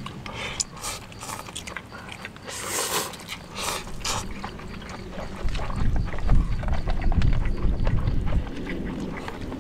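Close-up eating noises: noodles being slurped and chewed, in short noisy bursts that are loudest a few seconds in, with a low rumble of handling or wind in the second half.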